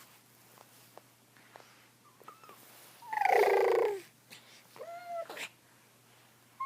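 Nine-month-old baby vocalising: about three seconds in, one loud, buzzy "brrrr" sound lasting about a second, then a short, soft, high coo.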